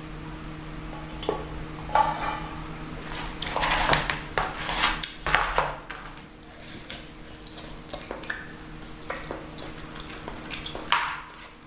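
Dishes and metal utensils clinking and scraping in irregular bursts, busiest in the middle, over a steady low hum.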